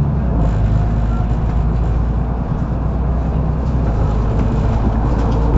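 Cabin noise of a Mercedes-Benz O530 Citaro facelift articulated bus under way: a steady low engine and drivetrain rumble mixed with road noise.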